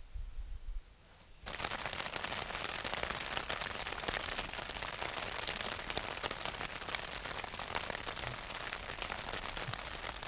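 Heavy rain pattering steadily on the fabric of a Southern Cross 2 tent, heard from inside the tent; it starts abruptly about a second and a half in.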